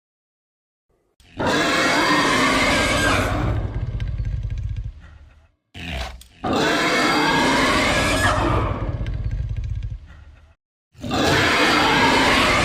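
Designed monster-boar roars layered from animal recordings such as wild boar, pig, lion, tiger and bear: three long roars of about four seconds each, the first starting about a second in, with a short burst of sound between the first two.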